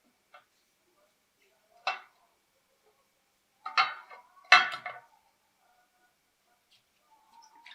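Metal pieces clinking and knocking on a hard surface: a sharp clink about two seconds in, two louder clattering bursts around four and five seconds in, and a few light clicks near the end.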